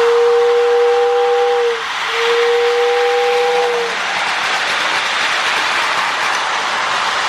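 Toy train whistle blowing two long blasts, each a steady two-tone chord, over the steady whirr of a Marx toy train running on the track.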